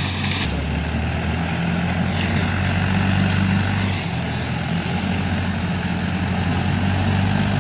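Farmtrac Champion 35 diesel tractor running steadily while it drives a PTO rotary slasher through dry maize stalks. The engine note shifts abruptly about half a second in and again about four seconds in.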